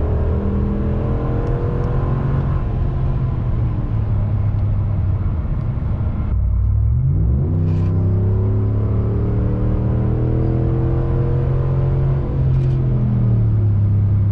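Ram 1500's 5.7-litre Hemi V8 running through a muffler delete pipe with the resonators kept, a deep exhaust rumble under way. The engine note sags gently at first, sweeps up quickly about halfway through as the revs rise, then holds steady and eases off near the end.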